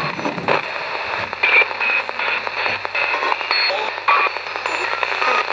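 Spirit box, a radio modified to sweep continuously across the stations, giving a steady hiss of static broken by quick chopped snatches of broadcast sound.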